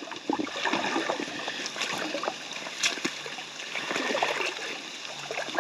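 Flowing creek water with irregular splashes and sloshes as a person in waders steps into the creek.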